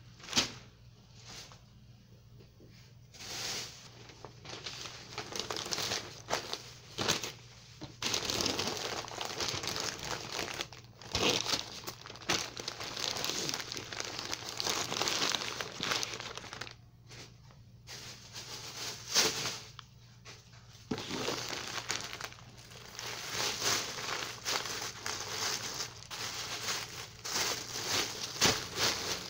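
Sheets of newspaper crinkling and rustling in irregular bursts as they are folded around bunches of leafy greens, with a sharp knock about half a second in. Toward the end a thin plastic shopping bag rustles as it is handled.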